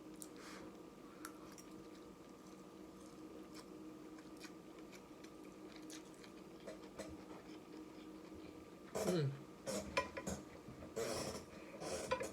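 Cutlery clinking on a plate while a meal is eaten: scattered light clicks over a faint steady hum, with louder clusters of clatter and eating noises in the last few seconds.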